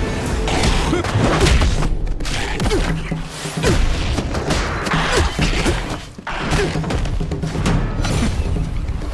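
Action-scene soundtrack: background music under heavy thuds, booms and crashing impact effects, broken by a few brief sudden drops.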